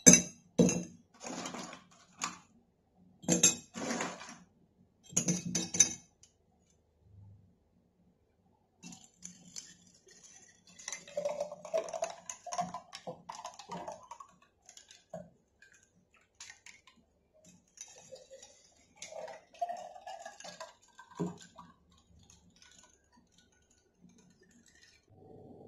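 Ice cubes dropped one at a time into glass jars, about eight sharp clinks in the first six seconds. Then sharbat is poured into the jars over the ice in two spells, quieter than the clinks.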